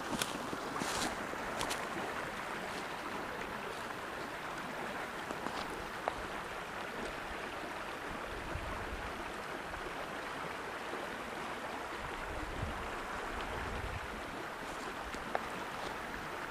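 Small trout stream running over stones, a steady rushing babble of water, with a few brief crackles near the start.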